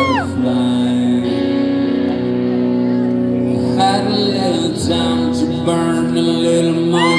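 Live band playing a song intro, with electric guitar chords ringing steadily and a bent guitar note rising near the end.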